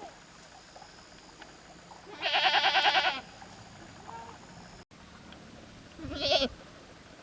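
Goat bleating twice: a loud, quavering call about a second long, then a shorter one a few seconds later.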